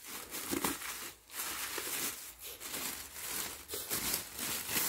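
Plastic bag crinkling and rustling in irregular crackles as sandy soil is scooped out of it by hand and put into a cut-off plastic bottle.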